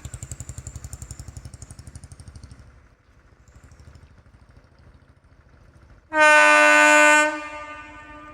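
WAG9 electric locomotive's horn giving one loud blast of about a second, late on, trailing off after. Before it, a rhythmic rumble of the rolling train fades out about three seconds in.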